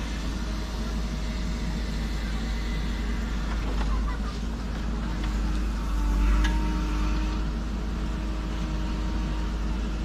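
JCB backhoe loader's diesel engine running steadily while the backhoe arm swings and digs; about six seconds in the engine note gets louder and steadier, with a short knock.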